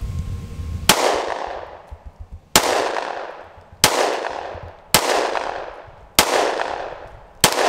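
Six gunshots fired one after another, about one every second and a quarter, each crack trailing off in an echo.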